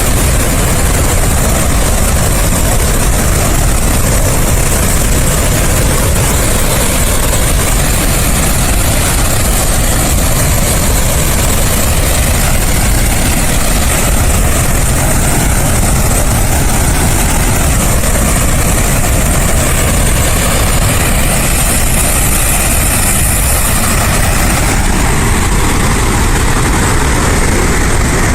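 A huge flood release of water rushing out of Summersville Dam's outlets. The sound is steady and unbroken: a deep rumble with a bright hiss of spray over it.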